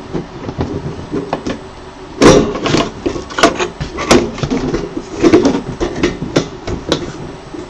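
Handling noise from a resin printer being put back together: irregular clicks, knocks and scrapes of its metal and plastic parts as a panel is fitted back in place. The loudest knocks come about two seconds in, with a few sharp clicks after.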